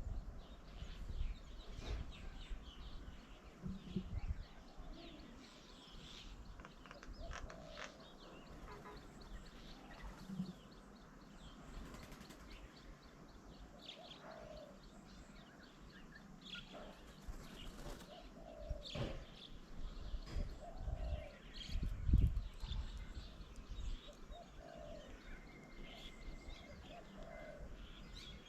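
Several birds calling around a garden bird table: many short high chirps and some shorter, lower call notes, with a few low thumps and flutters of wings.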